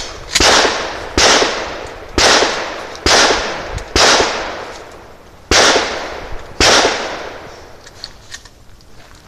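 Mossberg 590A1 pump-action shotgun firing seven shots at steel plate targets, about one a second, with a longer pause after the fifth shot.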